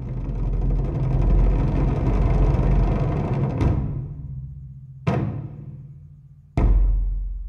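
Large Chinese barrel drums: a fast, dense roll of many drums, then, from about three and a half seconds in, single heavy strikes about a second and a half apart, each ringing out.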